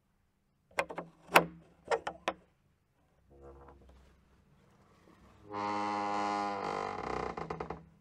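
Door handle and latch clicks and a closing knock, a cluster of sharp clicks with one louder bang. Then a door creaks on its hinges: a short creak, and later a long, loud, pitched creak that turns into a stuttering judder near the end.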